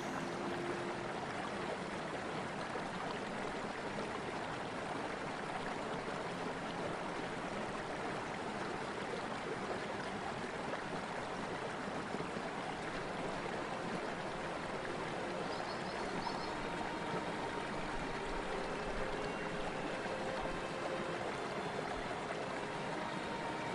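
Storm-swollen river rushing through rapids: a steady, even rush of churning whitewater.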